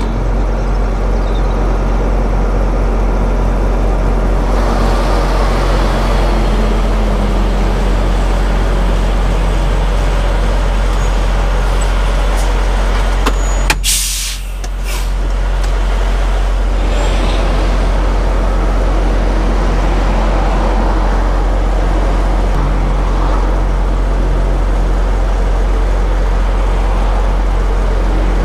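Semi-truck diesel engine running steadily, heard from inside the cab. About halfway through comes a short, sharp hiss of the air brakes as the parking brake is set.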